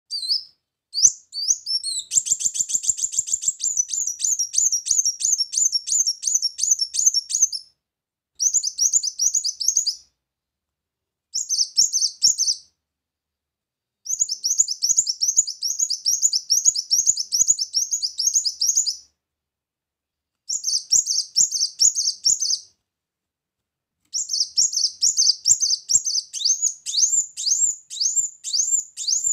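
A kolibri muncang sunbird singing in bursts of rapid, high, chattering trills. Each burst lasts a second or two up to about six seconds, with short silent pauses between them.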